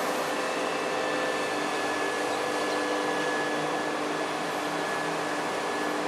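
Steady mechanical drone: an even noise with a few faint steady hum tones in it, holding constant without rising or falling.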